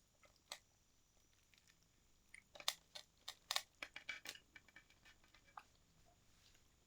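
A person eating close to the microphone: chewing, with a run of short clicks and crunches in the middle stretch and a few isolated ones before it.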